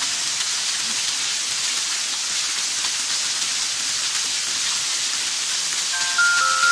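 Steady rush of water pouring from a pipe and a small falls, splashing onto a concrete floor and over a bather standing under the stream. A light, chiming mallet-percussion melody comes in near the end.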